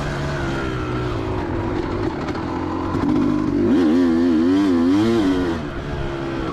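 2004 Kawasaki KX250's single-cylinder two-stroke engine running under a rider at steady, held-back revs, then rising and falling in pitch several times about four seconds in as the throttle is worked.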